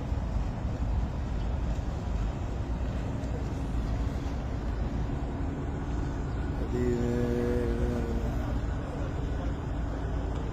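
Steady low rumble of a boat's engine with wind noise. Just past the middle, a single held tone sounds for about a second and a half.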